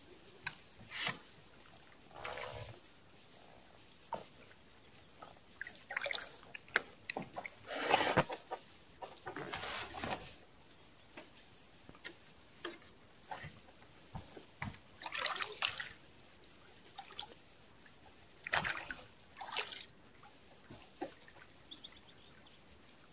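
Irregular small splashes and drips of water as a wet fishing line is pulled in hand over hand beside a boat.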